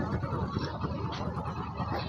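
Engine running steadily with a low rumble.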